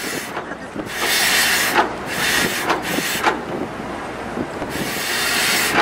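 Wind buffeting the microphone on an open ferry deck in four gusts that start and stop abruptly, over a low steady rumble.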